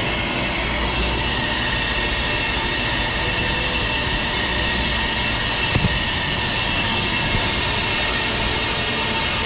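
Brake lathe running with a brake rotor spinning while both cutting bits feed across its faces, shaving about two thousandths off each side in a rough cut to true a rotor with runout. A steady machining noise with a few high ringing tones, and a brief knock about six seconds in.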